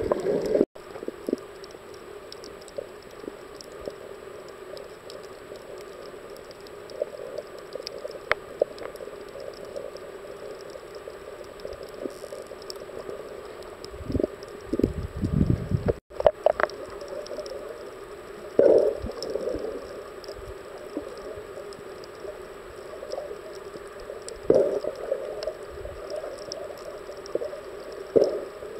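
Muffled underwater sound picked up by a submerged camera: a steady dull hum of water, broken by a few low rumbling swishes of water movement. It drops out for an instant twice.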